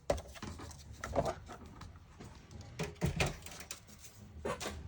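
Scattered light knocks and taps of paper and craft tools being handled on a worktable, a few clustered in pairs.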